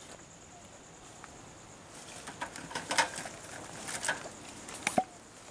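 Hard items clicking and knocking against each other in a plastic cantilever toolbox as a hand rummages through its trays. The clicks come scattered and irregular, mostly in the second half.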